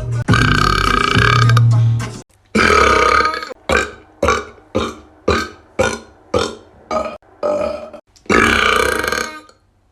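A man burping loudly: two long belches, then a run of short burps about two a second, then two longer belches near the end.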